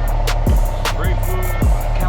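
Background music with a steady beat: deep bass kicks that drop in pitch about twice a second, with sharp drum hits over them.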